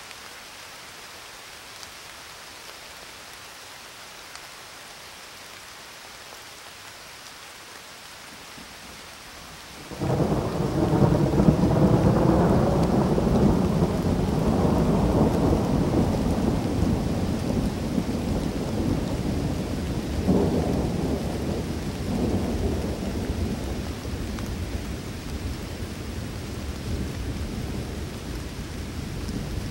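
Steady rain hissing, then about ten seconds in a loud roll of thunder breaks in and rumbles on, swelling again about twenty seconds in: a thunderstorm ambience recording.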